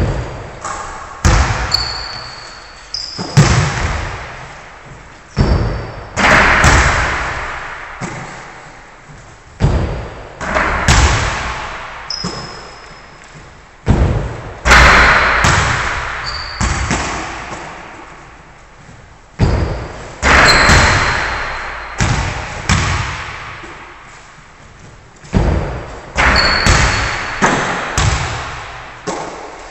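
Basketballs striking the hoop and bouncing on a wooden gym floor. There is a sharp knock every few seconds, often two or three close together, and each one rings on in the hall's long echo. Short high sneaker squeaks come now and then.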